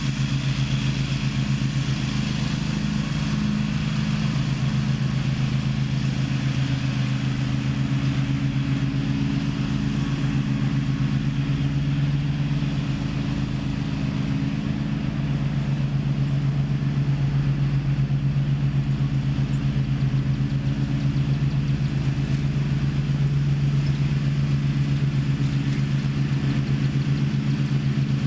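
Gravely ZTX 42 zero-turn riding mower's engine running steadily at a constant speed, a low even drone that dips slightly about halfway through.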